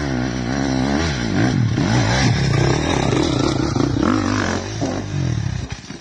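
A motor engine running and revving, its pitch rising and falling repeatedly, then dying away near the end.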